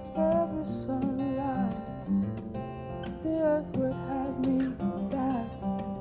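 Acoustic guitar being strummed and picked in a steady song accompaniment, with a wordless sung vocal line wavering over it.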